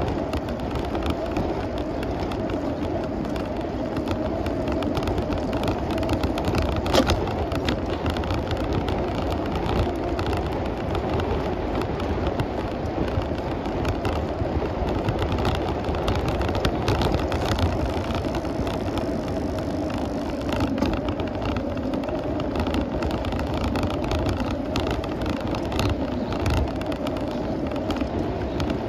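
Steady riding noise of a bicycle, its tyres rolling on the pavement, with a sharp knock about seven seconds in.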